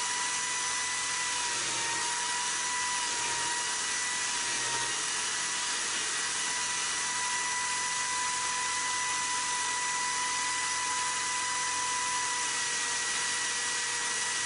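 Small electric power tool running steadily with a high motor whine, its pitch dipping slightly now and then as it bears on the work, used to clean rust off pipe wrench parts.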